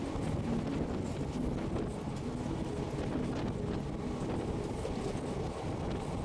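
Passenger train running along the track, heard from on board: a steady rumble of wheels on rails with occasional faint clicks.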